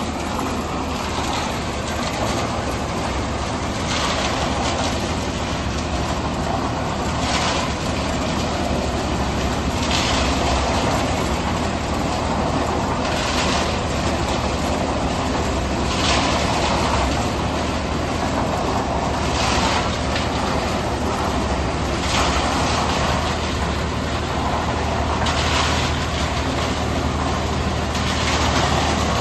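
Tractor-mounted self-loading concrete mixer running off the tractor's PTO: a steady low engine hum under a rasping rush that comes round about every three seconds.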